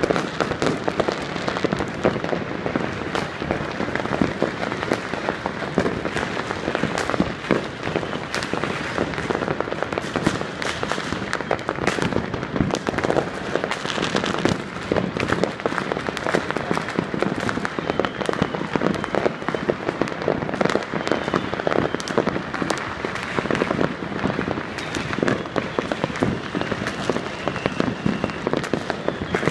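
Many fireworks and firecrackers going off at once across a city: a dense, unbroken crackle of pops and bangs with no pause.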